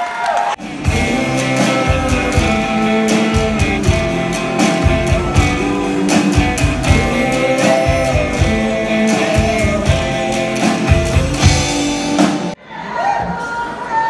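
A live rockabilly band playing: electric and acoustic guitars and an upright bass over drums, with a woman singing. The music cuts in about half a second in and cuts off abruptly near the end, where a man's voice takes over.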